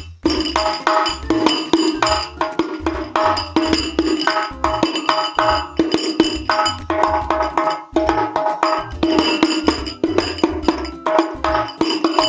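Rebana hadroh, a 30 cm goatskin frame drum with small metal discs on its rim, hand-played in a continuous rhythm of fast struck strokes. The strokes ring at several pitches, with brief pauses between phrases.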